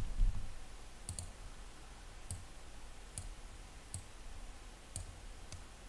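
Computer mouse buttons clicking: faint single clicks about once a second, with a quick double click about a second in.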